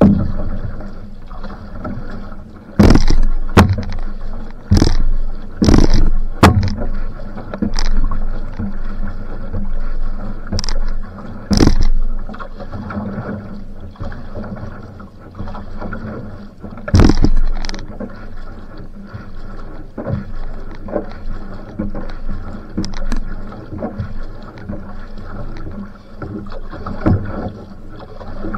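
Outrigger canoe (va'a) paddled at sprint pace: the paddle catches and pulls through the water, with splashing and water rushing along the hull about once a second. Several sharp, loud splashes or knocks close to the microphone come in the first half, and one more a little past halfway.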